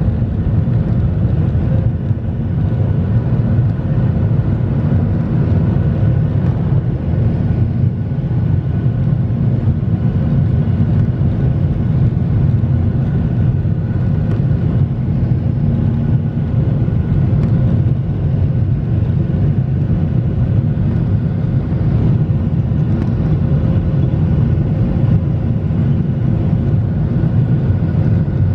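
Steady jet engine and airflow noise heard inside the cabin of a Boeing 737 airliner in flight: a constant deep rumble with a faint steady hum over it.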